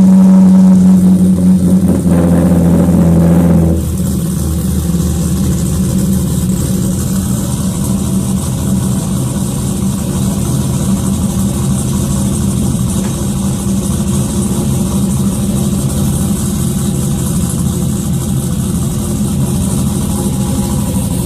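Car engine just started, running loud and high for about four seconds, then dropping to a lower, steady, lumpy idle for the rest.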